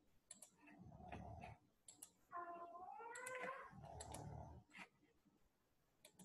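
Faint clicks of a computer mouse and keyboard, with faint, muffled voice-like sounds in between.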